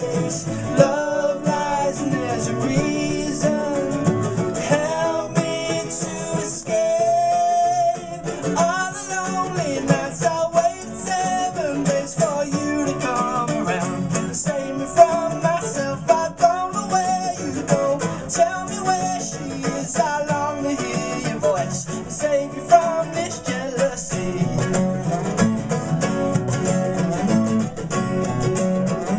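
Live acoustic folk song: a man singing over a strummed steel-string acoustic guitar and a picked nylon-string classical guitar.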